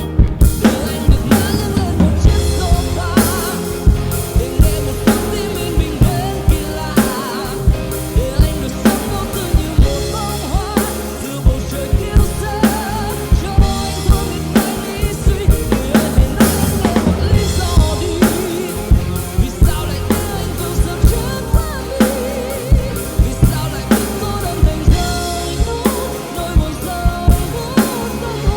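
Yamaha Motif XF6 keyboard playing a pop arrangement with its drum-kit voices: kick, snare and rimshot hits in a steady beat under a bass line and a wavering melody.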